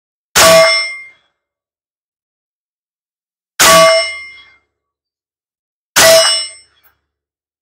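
Three single shots from a 9mm AR-type carbine firing 147-grain rounds, each followed by the clang and ring of a struck steel plate target. The shots come about three seconds apart and then about two and a half seconds apart.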